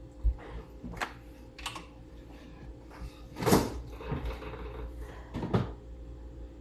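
Kitchen handling noises: a series of separate knocks and clicks, about six in all, like utensils, dishes or cupboard doors being handled, the loudest a short clatter about halfway through.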